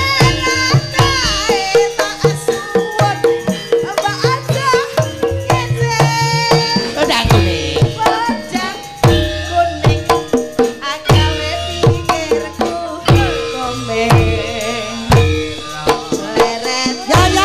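Javanese gamelan music: steady ringing metallophone tones with kendang drum strokes about twice a second, and a voice singing over it with wavering pitch.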